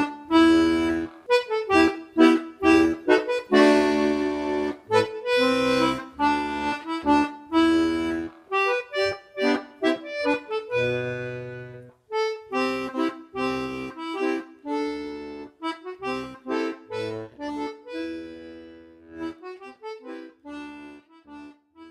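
Castagnari Lilly D/G button melodeon playing a traditional English folk tune as an instrumental: a melody of short reedy notes over left-hand bass and chord accompaniment. The playing stops for a moment about twelve seconds in, then resumes and winds down to a final note near the end.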